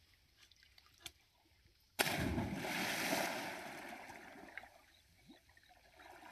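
A person jumping off a boulder into a river pool: one sudden splash about two seconds in, followed by churning water that fades away over the next two seconds.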